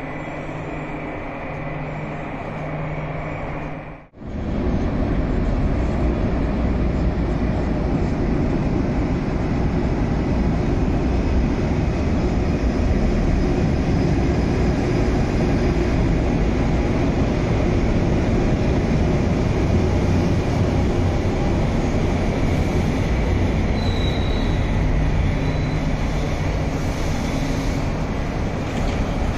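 Cleveland RTA Red Line rapid-transit train arriving at an underground platform and stopping: a loud, steady rumble of wheels and traction gear, with a short high squeal about twenty-four seconds in. The sound drops out for an instant about four seconds in, and the rumble then starts at full strength.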